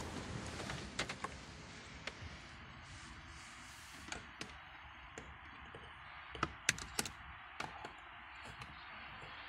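Scattered light clicks and plastic knocks as a portable tyre compressor's power cord and cigarette-lighter plug are handled and pushed into a car's 12-volt socket, the sharpest cluster of clicks between about six and seven and a half seconds in, over a steady hiss.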